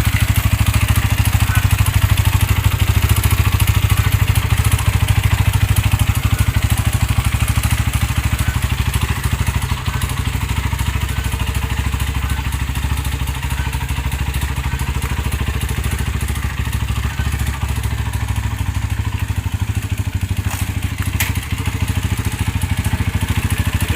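Yamaha Y15ZR single-cylinder four-stroke motorcycle engine, rebuilt with a 65 mm big-bore block, idling steadily.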